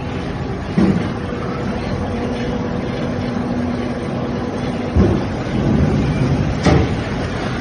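30 kW SKJ350 wood pellet mill and its sawdust feed screw conveyor running, a steady machine noise with a faint hum, broken by three sharp knocks: about a second in, two-thirds of the way through, and near the end.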